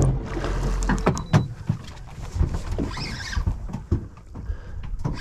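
Irregular knocks and clatter aboard a small fishing boat, over a low motor hum that fades out after about a second.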